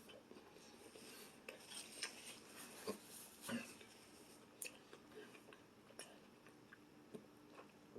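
Faint, scattered clicks and light rustling of cutlery and takeout food containers being handled, a few sharper ticks among them.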